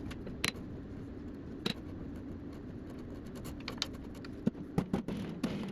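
Metal lathe running while turning an EN19 steel shaft: a steady low hum with irregular sharp ticks and clicks, more of them near the end.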